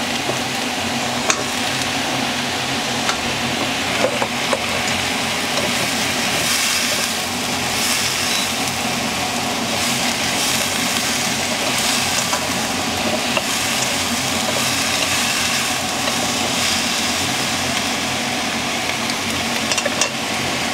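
Okra sizzling in hot oil in a wok with shallots and garlic, a steady frying hiss as it is stirred with chopsticks. A few light clicks of the chopsticks against the pan come through now and then.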